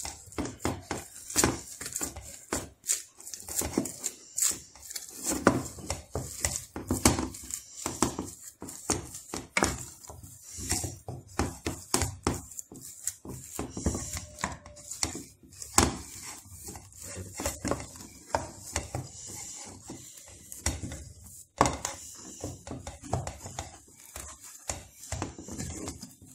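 Wooden spatula knocking and scraping against an enamel saucepan as thick carrot fufu dough is turned and mashed. The knocks are irregular, several a second.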